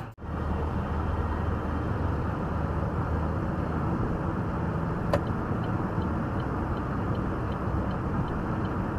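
Steady road and engine noise of a car driving at highway speed, heard from inside the cabin: an even rumble with a low hum, one brief click about five seconds in, and faint regular ticks in the second half.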